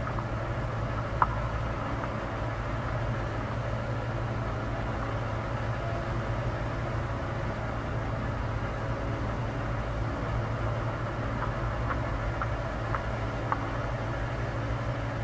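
Steady low rumble with a hiss, with a single faint click about a second in and a few more near the end.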